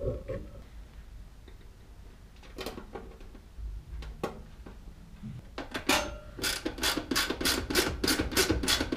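A hand ratchet clicking quickly and evenly, about five clicks a second, as it drives in the screw that holds a heater's sheet-metal cover shut. The clicking starts a little past halfway; a few single knocks come before it.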